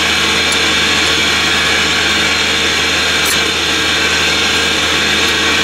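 Steady running noise of a portable air compressor and air receiver: a constant low hum under a loud even hiss, with a few faint clicks.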